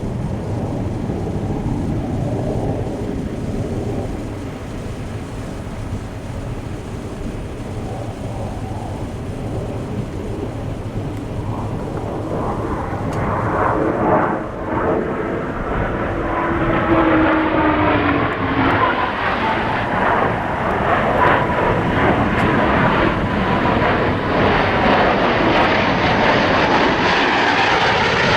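Aircraft engine noise that grows louder about halfway through, with a tone that slides down in pitch for a few seconds.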